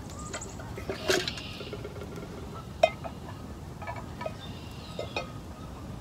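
Metal camp cookware clinking and knocking as it is handled: a handful of separate knocks, the loudest about a second in and another just before the middle.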